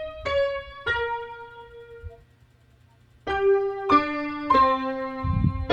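Solo piano part from a bossa nova song: single notes struck about every half second, each ringing and fading. A second-long pause about two seconds in, then new notes and held chords.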